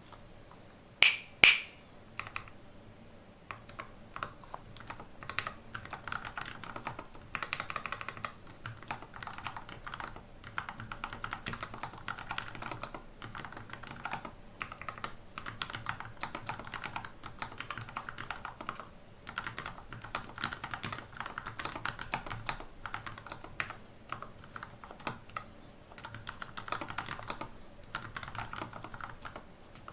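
THE40 40% mechanical keyboard being typed on in a steady stream of key clicks, with brief pauses between bursts. Two sharp, much louder clicks come about a second in, before the typing starts.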